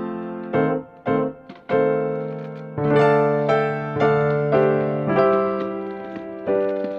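Background music played on a keyboard: chords and melody notes struck and left to ring, changing every half second to a second.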